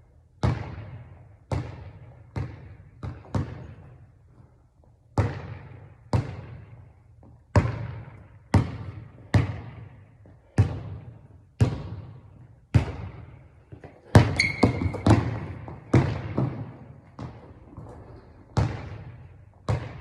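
Basketball being dribbled on a hard court, echoing bounces at about one a second, quickening into a rapid flurry of bounces about two-thirds of the way through.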